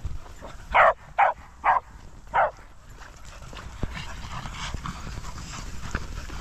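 A dog barking four short, sharp barks in about two seconds, then fainter scattered sounds.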